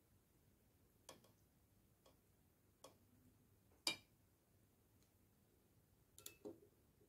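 Faint, scattered clicks and taps of a knife and fingers against a steel pot and a ceramic dish while cheese cubes are set on stuffed peppers, about six in all, the sharpest just under four seconds in.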